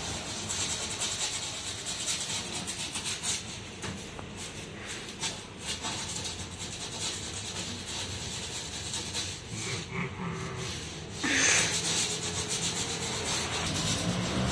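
Scratching and rubbing on a wooden board in short, irregular scrapes, with one louder burst about eleven seconds in.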